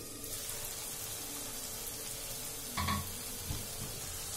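Thick onion-tomato masala sizzling softly in a kadhai, with a short clink about three seconds in.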